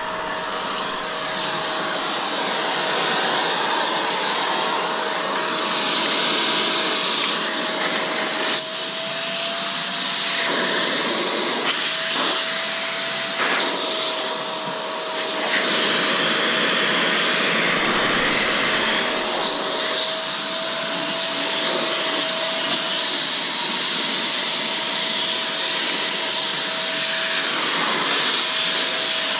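Vacuum cleaner running: a steady motor whine under rushing air that shifts now and then as it sucks up dust and leaves from around a car's radiator.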